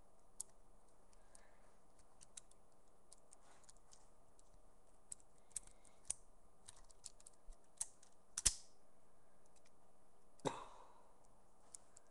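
Lego bricks of a Lego balisong being handled, giving scattered light plastic clicks and taps, with two sharper knocks about eight and a half and ten and a half seconds in.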